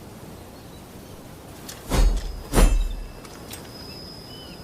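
Two quick swishes of a naginata swung through the air, about half a second apart, each with a heavy low rush.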